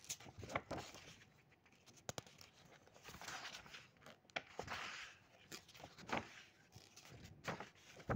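Faint handling noise in a small room: scattered soft clicks and brief rustles, with no voice.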